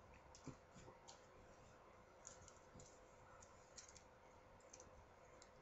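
Near silence with a faint room hum and a few faint, scattered clicks and rustles from clothes being handled.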